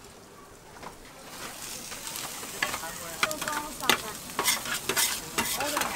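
Shredded cabbage and greens sizzling on a flat-top steel griddle while metal spatulas stir, scrape and chop them. The scraping and frying grow louder about two seconds in, with many sharp clacks of the spatula edges on the plate.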